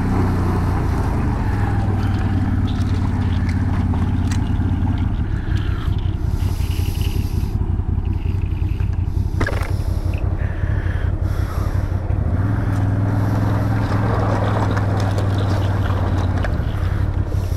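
CF Moto CForce 1000 ATV's V-twin engine running as the quad works across ice sheets, with ice scraping under the machine through the middle and a sharp knock about nine and a half seconds in.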